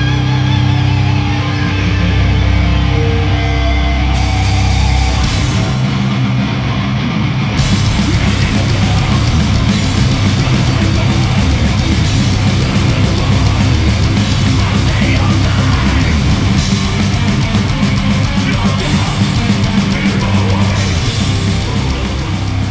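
Metal band playing with heavy distorted guitars and bass. Drums and cymbals come in about four seconds in, and the full band plays on from there.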